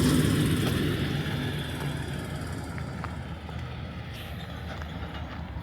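A motor vehicle going past, its engine and road noise fading away over the first few seconds, leaving a low steady traffic rumble.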